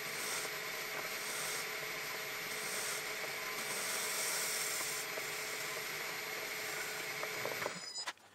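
Metal lathe running under a light facing cut: the steady hum of the machine with the scraping hiss of the tool cutting across the end of the workpiece. The sound stops abruptly just before the end.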